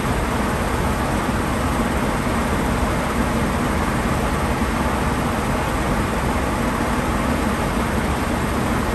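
Steady machine noise: an even rushing sound with a constant low hum underneath, unchanging throughout.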